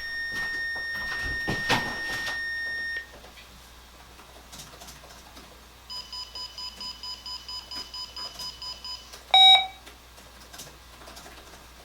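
Electronic alert beeps: a steady tone for about three seconds, then rapid even beeping at about five beeps a second for three seconds, then a single short, louder beep.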